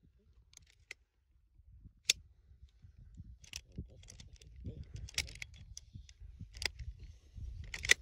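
Scattered sharp clicks and light rattles, the loudest about two seconds in and again near the end, over an uneven low rumble.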